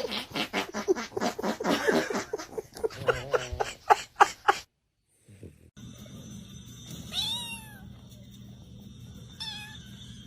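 Cat caterwauling in a rapid run of short, loud cries that stop suddenly, then after a pause two separate meows over a steady low hum.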